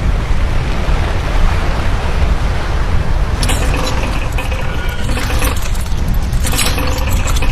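Anchor chain running out from a ship's windlass as the anchor is let go on the brake: a continuous loud metallic rattle over a deep rumble, with sharper clattering from about three and a half seconds in.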